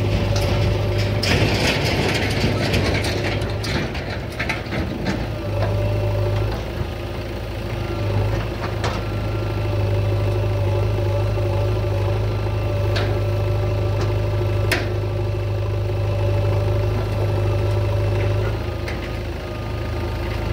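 Heavy diesel machinery running with a steady low hum, with scattered metallic clanks and rattles on top. A rougher clattering stretch comes about one to four seconds in.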